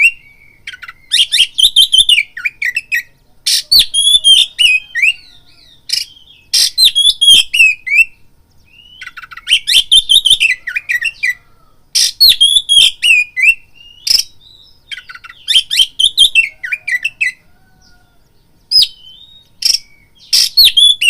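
Oriental magpie-robin (kacer) singing in loud bursts of rapid, varied whistled and chattering phrases mixed with sharp clicking notes, a second or so of pause between bursts.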